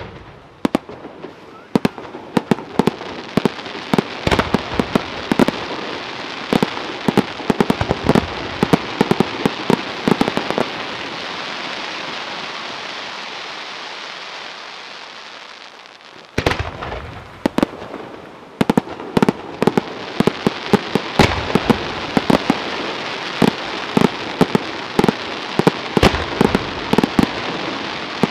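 Scarsella Fireworks' aerial display: rapid volleys of shell bursts and sharp reports over a continuous crackling hiss. After about ten seconds the bangs stop and the hiss fades, then cuts out briefly past halfway. A new volley of bangs follows.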